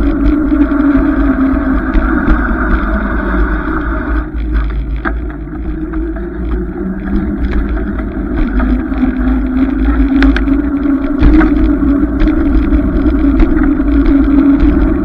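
Steady rumble of wind buffeting and road noise picked up by a camera riding on a moving bicycle, with scattered light clicks and rattles from bumps, easing briefly about four seconds in.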